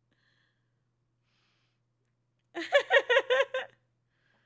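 A woman laughing: a quick run of about six high-pitched "ha"s lasting about a second, starting a little past halfway through.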